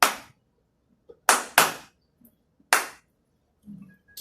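Sharp hand claps in an uneven pattern: one clap, a quick pair, then one more. The uneven beat imitates an altered, arrhythmic heart rhythm.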